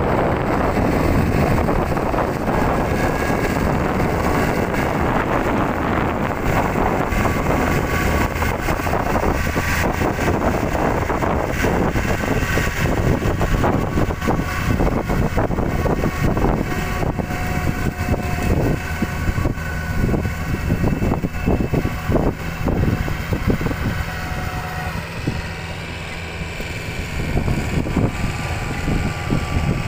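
Iseki tractor's diesel engine running steadily under load as its rear rotary tiller churns through flooded paddy mud, fading a little near the end.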